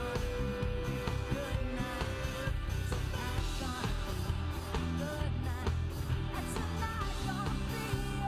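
Band playing a pop-rock song, with a lead vocal over drums, bass, electric guitar and keyboard; the singing comes in about a second and a half in.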